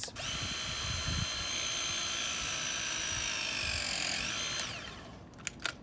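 Milwaukee M12 ProPress battery press tool running through a press cycle, crimping a Zoomlock fitting onto copper refrigerant pipe. Its motor gives a steady whine that sinks slightly in pitch as it works, rises briefly and stops after about four and a half seconds, followed by a couple of clicks.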